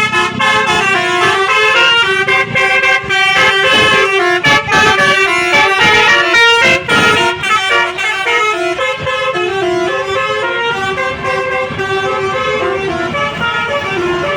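Telolet horns on tour buses: multi-note air horns playing a stepped tune, with several tones overlapping, loudest in the first half.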